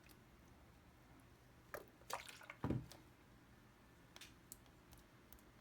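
Runny, sticky clear slime being worked by hand as it is activated: faint wet squelches and clicks, with a louder cluster of squishes about two seconds in that ends in a soft thud.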